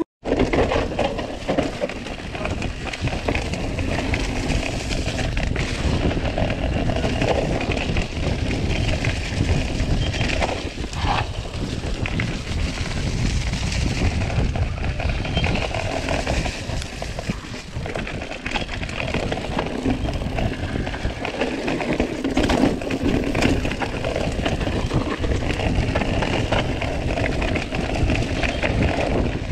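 Orbea Occam full-suspension mountain bike riding over a dirt singletrack, heard from a body-worn action camera: a continuous low rumble of rolling tyres and wind on the microphone, with the bike rattling and clicking over the rough ground.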